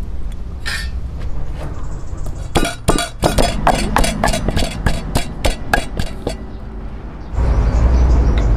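Wooden pestle pounding garlic and red onion in a wooden mortar: a fast, even run of dull knocks, about four a second, for several seconds in the middle.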